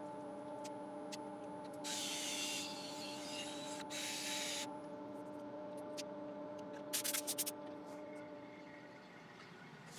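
Wood lathe running with a steady motor hum while sandpaper is pressed against the spinning yew bowl, giving short hissing strokes about 2 and 4 seconds in. A quick rattle of clicks comes near 7 seconds.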